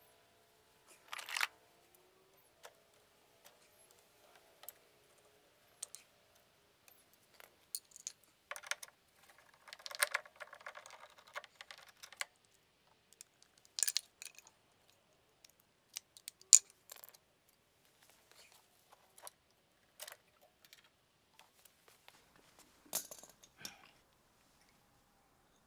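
Irregular clicks, taps and light metal clinks of a 1/4-inch driver and other hand tools working on the manifold bolts and fittings of a gas pool heater, with a few sharper knocks about a second in and around the middle.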